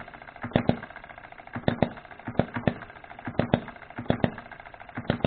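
Odds and Ends hit-and-miss model gas engine running, firing with sharp pops that come mostly in close pairs about once a second, coasting between them. It usually hits twice and then coasts, and the owner is unsure whether this pattern comes from the ignition timing.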